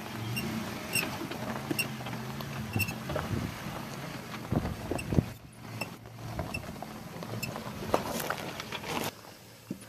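Toyota 4Runner's engine running at a low steady crawl over a rocky off-road track, with stones crunching and clicking under the tyres. Several heavier knocks come about halfway through.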